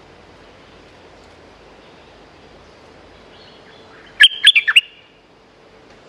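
Bulbul giving one loud, quick burst of six or so bubbling notes, about half a second long, a little after four seconds in.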